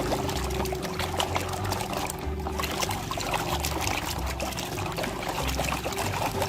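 Water pouring and splashing over a muddy plastic toy as it is washed, with a steady crackle of spray, over background music with a regular bass beat.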